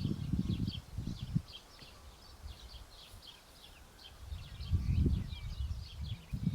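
Many small birds chirping steadily with short, quick high calls. Louder bouts of low rumble come in the first second or so and again from about four and a half seconds in.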